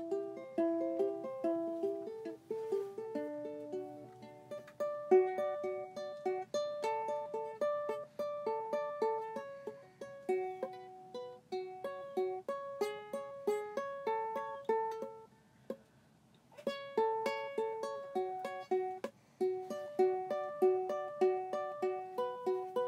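Background music: a plucked string instrument picks a melody of short, quickly fading notes, with a brief pause about two-thirds of the way through.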